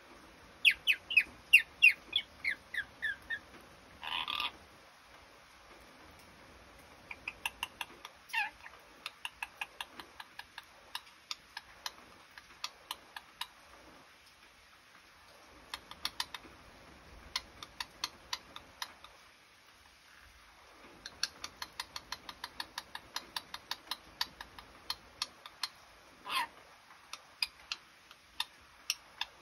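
Red lory calling: a quick run of loud chirps falling in pitch near the start, a short squawk about four seconds in, then long runs of short clicking notes, several a second, with pauses between runs.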